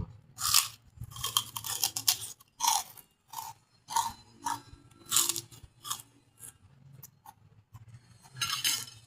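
Close-miked chewing and crunching of crunchy food in a person's mouth, a series of irregular crunches about one every half second to a second.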